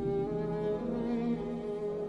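Symphony orchestra's string section playing a slow passage of bowed, held notes that shift in pitch.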